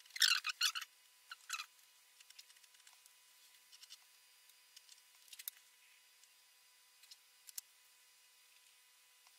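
A paintbrush scratching in quick short strokes, in two clusters in the first second and a half, then faint scattered ticks and a couple of sharper clicks.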